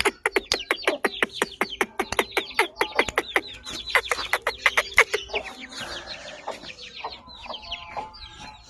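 Aseel chicks peeping: a fast, dense run of short, high, falling peeps that thins out about five seconds in, leaving softer, scattered calls.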